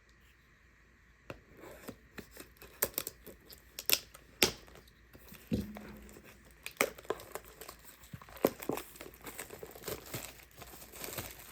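Plastic trading-card packaging torn open and crumpled by hand, starting about a second in as a run of irregular crackles and crinkles.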